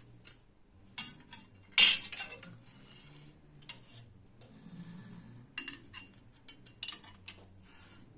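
Steel band saw blade being handled and laid into the clamps of a flash butt welding machine: scattered metal clinks and clanks, the loudest about two seconds in.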